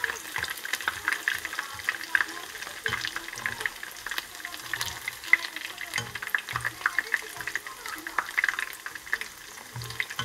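Battered vegetable fritters of shredded potato, onion and carrot crackling and sizzling as they deep-fry in oil, with wooden chopsticks turning them in the pot and giving a few soft knocks.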